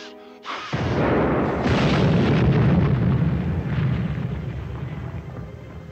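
Cartoon explosion sound effect of a stockpile of TNT and a blockbuster bomb going off. It is a sudden loud blast about half a second in, followed by a long deep rumble that slowly fades.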